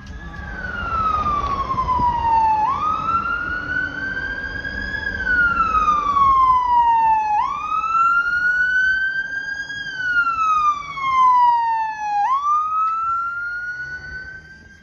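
Siren on an approaching fire rescue truck, wailing in slow cycles of about five seconds: the pitch climbs quickly, levels off, then glides down, about three times. Low truck engine noise runs beneath it, and the siren gets louder about a second in and fades near the end as the truck turns away.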